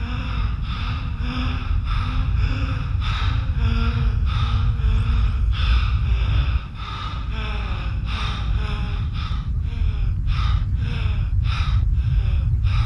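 A person gasping for air in rapid, laboured breaths, about two a second and quickening near the end, over a steady low rumble.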